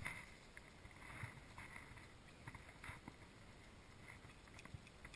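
Near silence, with faint water lapping around a small boat and a few soft, short swishes and rustles.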